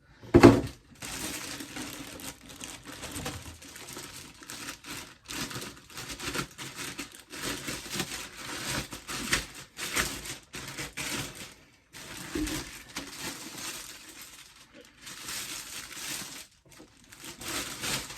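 Plastic packaging crinkling and rustling in irregular spells as an inverter is unwrapped from its box, with a single sharp knock about half a second in.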